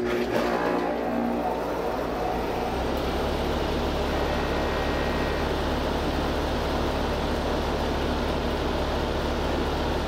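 Heat pump outdoor unit switching on and running steadily, its scroll compressor starting and running normally with the condenser fan instead of only humming and stalling: the locked-rotor fault was cured by replacing the run capacitor. The low hum grows stronger about three seconds in.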